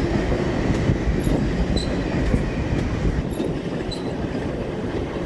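ICE train passing with a steady rolling rumble and its wheels giving short, high squeals on the track.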